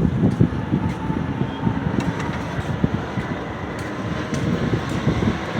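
Metra commuter train with an EMD F59PHI diesel locomotive moving through the station: a steady rumble with scattered sharp clicks from the wheels and cars.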